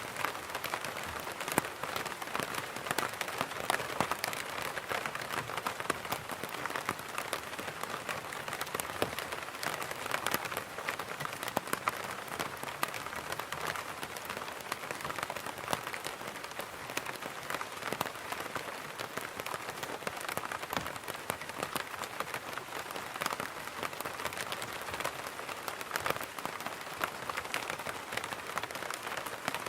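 Rain pattering on an umbrella canopy: a dense, steady spatter of countless small drop impacts, with no break.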